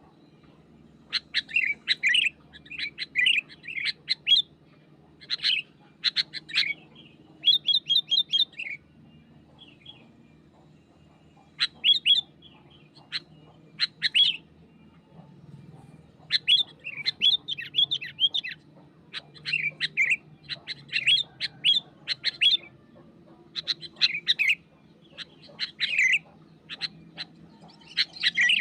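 Sooty-headed bulbul singing loud bouts of quick chirpy, bubbling phrases, repeated again and again with short pauses between them.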